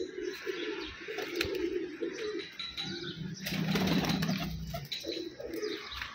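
Domestic pigeons cooing over and over, with a flurry of wing flaps about three and a half seconds in as a hen pigeon is set down on the perch.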